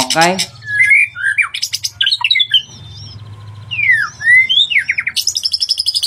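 White-rumped shama (murai batu) singing: a varied string of clear whistled glides, rising and falling, mixed with runs of quick repeated notes.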